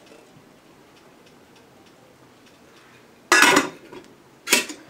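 Glass lid of a rice cooker set down on its aluminium inner pot: a sudden ringing clatter about three seconds in, then a second, shorter clink about a second later as it settles.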